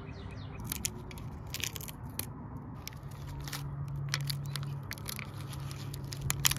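Green painter's tape being peeled off and crumpled by hand, with a run of irregular crackles, over a steady low hum.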